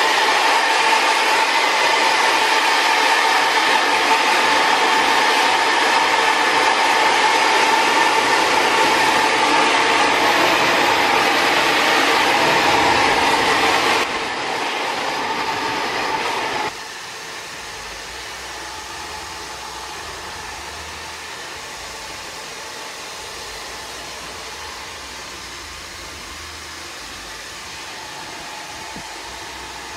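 Hand-held hair dryer blowing steadily, a rushing airflow with a steady whine. It drops in level about fourteen seconds in and more sharply a few seconds later, running on quieter.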